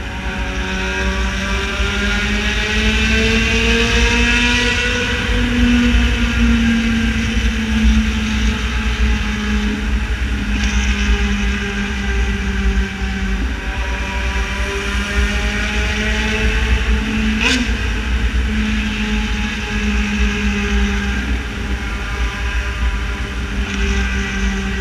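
Yamaha XJ6 Diversion's inline-four engine through a full aftermarket exhaust, running at a steady cruise, its pitch climbing gently over the first few seconds and then easing back, under heavy wind rumble on the microphone. A single sharp click about 17 seconds in.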